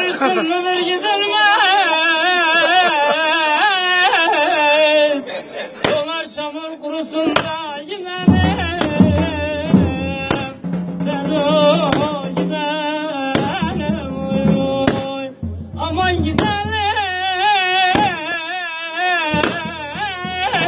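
An uzun hava, a Turkish free-rhythm folk song, performed with long, wavering, ornamented melodic notes. From about eight seconds in, low held notes and sharp struck beats join the melody.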